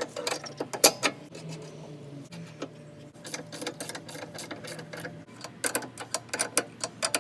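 Hand ratchet wrench clicking in quick, irregular runs with small metallic clinks, as nuts are run on and tightened on the rear suspension. The clicks come fastest near the end.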